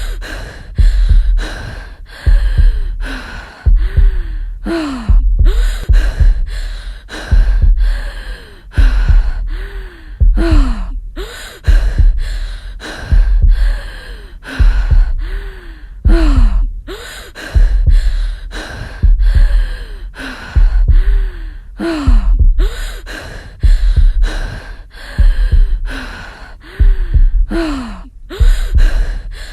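Heavy, gasping breaths repeated over and over, about one every two seconds. Each is a sharp breath followed by a sighing, voiced exhale that falls in pitch.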